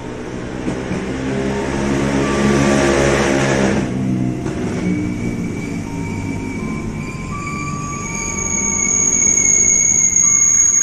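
KRL Commuter Line electric train running in alongside the station platform. The motor hum and wheel rumble build to a peak about three seconds in. A steady high-pitched squeal sets in around five seconds, and a second, even higher squeal joins it later as the cars pass.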